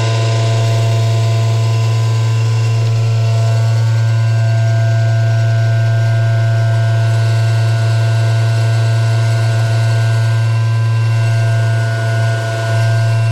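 Loud, steady machine hum: a strong constant low drone with several steady higher tones above it, dipping briefly near the end.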